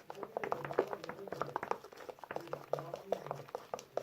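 Borax slime being stirred and worked in its container, with a quick, irregular run of small sticky, wet clicks and pops.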